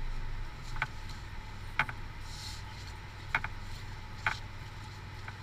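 Steady low hum of a car on the move, heard from inside the cabin, with a handful of short, sharp clicks at irregular intervals.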